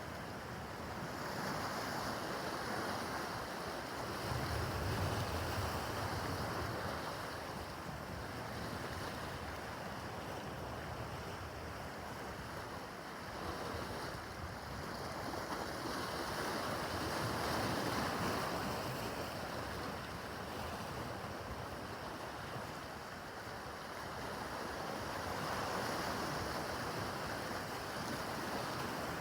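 Rough water: waves surging and washing in, swelling roughly every ten seconds, with wind on the microphone.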